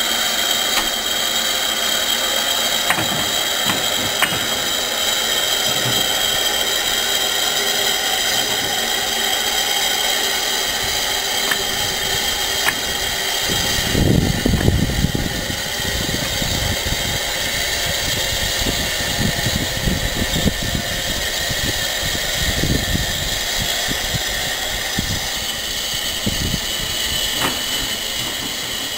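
Steam tank locomotives standing in steam: a steady hiss with a few sharp clicks and clanks. About halfway through, low rumbling buffets join in.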